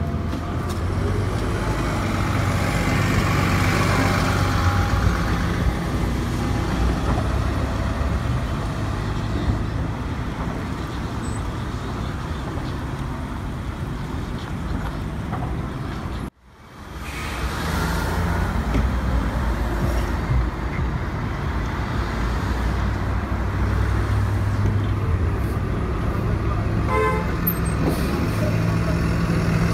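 City transit buses running in street traffic: a steady low engine hum with tyre and road noise, loudest as a bus pulls past in the first few seconds. The sound drops out abruptly for a moment about halfway through, then bus and traffic noise resumes.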